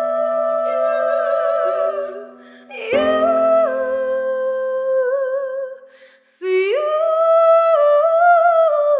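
A cappella choir holding a sustained humming chord that fades out a little over two seconds in. A new chord swells about three seconds in and thins to a single female voice singing a held melody with vibrato. The voice breaks off briefly around six seconds and comes back.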